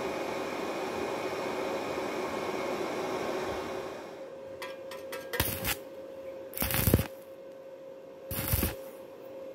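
Stick-welding arc tacking thin galvanized square tubing: three short bursts of arc noise, each under half a second, about a second and a half apart, over a faint steady whine. A steady, even hiss fills the first four seconds before the strikes.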